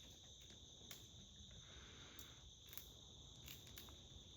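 Faint, steady high trilling of crickets, with a few soft sharp clicks scattered through.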